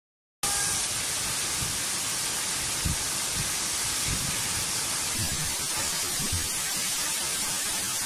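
Waterfall running: a steady, dense hiss of falling water and spray that cuts in just under half a second in, with a few brief low thumps underneath.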